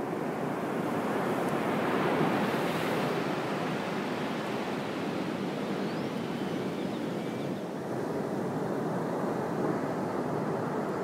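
Ocean surf on the beach: a steady rushing noise that swells about two seconds in.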